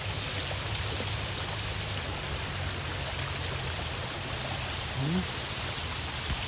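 Steady rush of flowing river water, with a low hum underneath. A short rising vocal 'hm' comes about five seconds in.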